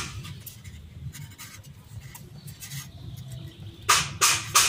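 Grafting film (parafilm) being stretched and wound around a grape graft union: soft rubbing and rustling of the film on the stem and fingers, with a few louder rustles about four seconds in.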